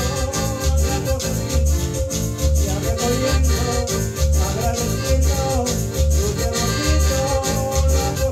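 Piano accordion playing a lively Latin American tune, with a steady bass beat and percussion keeping time.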